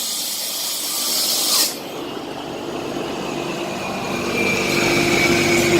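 Dust-control ventilation equipment (an air scrubber and an exhaust fan) running. A loud hiss cuts off abruptly under two seconds in, leaving a steady motor hum with a held whine that grows louder toward the end.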